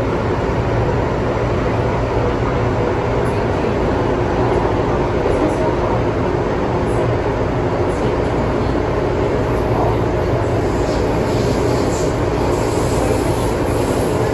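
MTR M-train underway, heard from inside the car: a steady, loud rumble of wheels on the track and running gear, with faint steady tones underneath.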